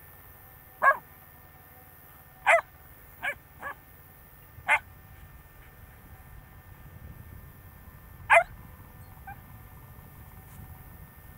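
Alaskan Malamute barking in short, single barks: six scattered over about eight seconds, two of them softer and close together a few seconds in.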